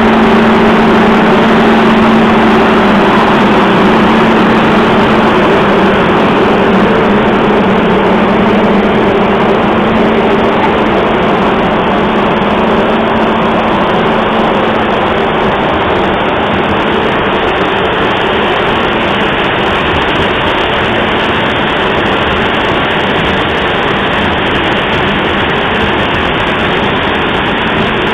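Large fans of a TECO corn grain dryer running: a loud, steady rush of air with a low hum that fades after about ten seconds.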